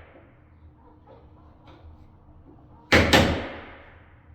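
Two quick hammer blows on the door about three seconds in, each ringing out over most of a second: knocking out wood around the bore hole to reach a hidden fastener.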